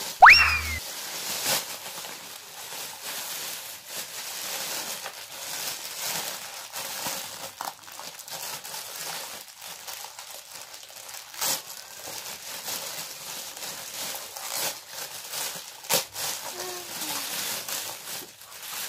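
Thin black plastic bag crinkling and rustling as it is handled and pulled open around a skateboard, with sharper crackles every few seconds. A brief loud squeak sweeps up in pitch right at the start.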